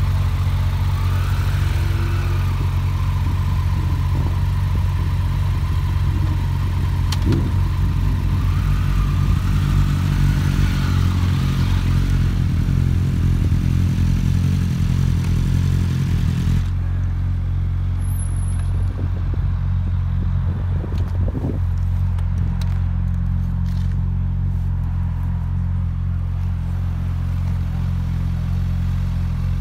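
Motorcycle engine idling steadily close by.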